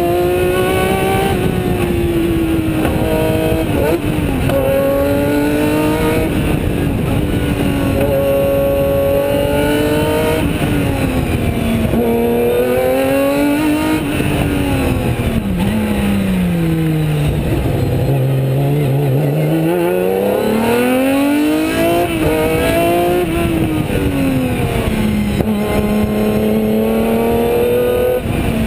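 Osella PA 20 S sports-prototype race car's engine at racing speed, heard from the open cockpit, its revs repeatedly climbing and falling back with the gear changes. Around the middle the revs drop low for several seconds, then climb again.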